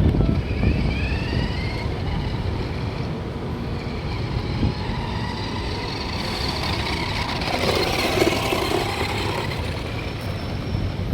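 Children's remote-control toy police car running, a steady noisy rumble with a few rising and falling tones about a second in and again around eight seconds.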